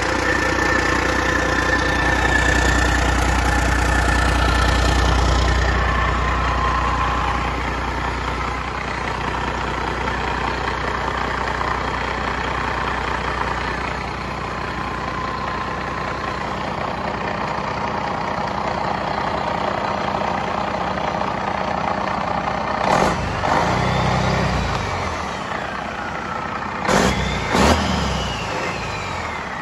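Warm Detroit Diesel Series 60 12.7-litre inline-six turbo diesel (DDEC IV, non-EGR) running steadily on a test stand, a little louder for the first several seconds before settling at idle. A few sudden sharp thumps sound near the end.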